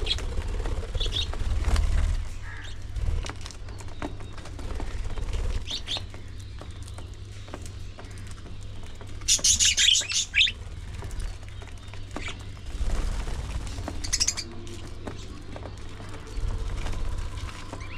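Budgerigars chirping now and then, with wings flapping, and a loud burst of chirping and fluttering about halfway through. A low rumble runs underneath.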